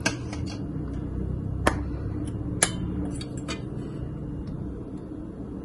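A few sharp clicks and taps of a spoon against the dish and spice container as spices are spooned onto raw chicken pieces. The two clearest come about a second and a half and two and a half seconds in, over a steady low background hum.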